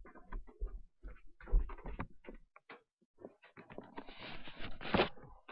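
Footsteps going down a flight of stairs into a room, mixed with the rubbing and knocking of a handheld camera being carried: irregular thuds and clicks, with a denser stretch of rustling about four to five seconds in.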